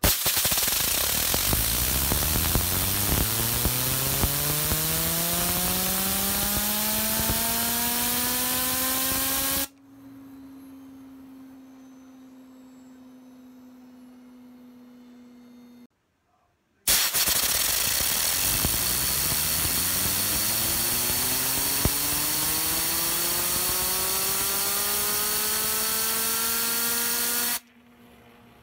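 Compressed air hissing from a blow nozzle onto a copper DH29 Zaftig bi-spinner, its whirring tone rising steadily in pitch as the spinner spins up. The air cuts off after about ten seconds and leaves the spinner's quieter steady hum as it spins freely. The same spin-up happens again in the second half.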